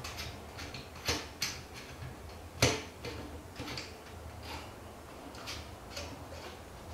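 Irregular light clicks and knocks of metal parts as a Spin-Loc air cylinder is turned by hand onto a GunPower SSS PCP air rifle. One sharper knock about two and a half seconds in is the loudest.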